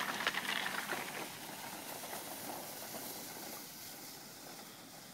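Rustling, scraping noise of a dog-drawn three-wheeled cart and its load of bamboo poles moving over the ground. It is loudest at first and fades away.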